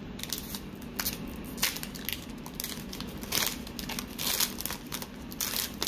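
Foil wrapper of a Pokémon Hidden Fates booster pack crinkling and crackling in the hands as it is opened, a run of irregular crackles with a few louder ones.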